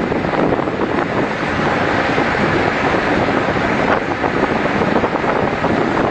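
Strong wind on the microphone over the rush of a rough sea, a steady loud noise.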